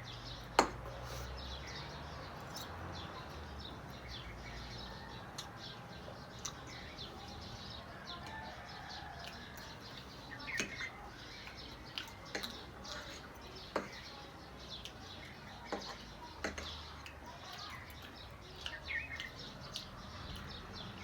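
Quiet eating sounds: scattered light clicks and taps of chewing and utensils, with a few short bird chirps in the background.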